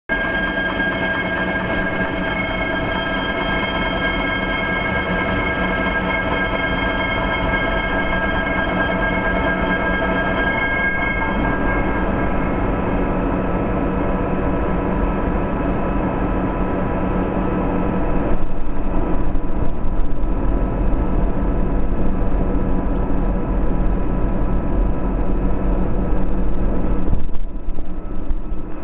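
Metal lathe turning a large aluminium pulley: a steady machine drone carrying several constant high whining tones, which fade out about twelve seconds in. The sound grows louder and more uneven about eighteen seconds in.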